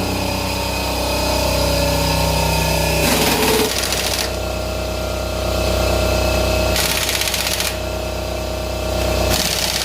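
An engine running steadily with a rapid rattling pulse, broken by three short rushes of hiss about three, seven and nine and a half seconds in.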